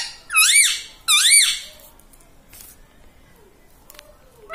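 Ringneck parrot giving two high, squeaky calls in the first two seconds, each rising and then falling in pitch.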